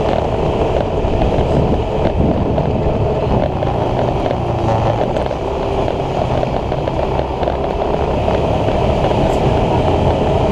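Motor scooter running steadily with wind rush and road noise, heard from a camera riding on the scooter.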